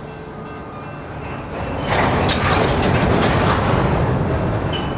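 Empty covered grain hopper cars rolling slowly past, wheels clacking and car bodies rattling. The clatter grows louder for a few seconds in the middle, and a short high wheel squeal comes near the end.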